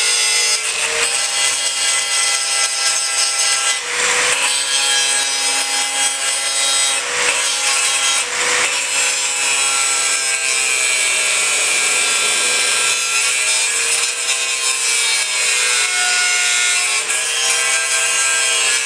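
An electric power tool runs steadily while cutting, its motor pitch wavering slightly under load, with a few sharp knocks along the way.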